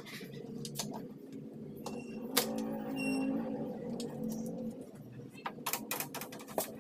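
Scattered clicks and knocks of tools and door parts being handled as a car door is taken apart to reach the power window mechanism, with a quick run of clicks near the end over a steady low hum.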